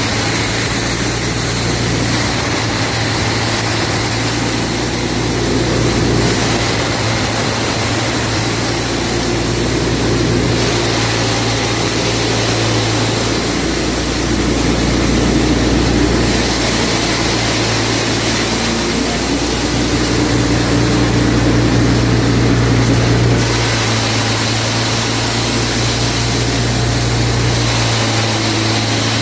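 Plastic recycling dryer and its belt-driven electric motor running steadily: a loud, constant low hum under a rushing noise. The sound shifts in balance a few times.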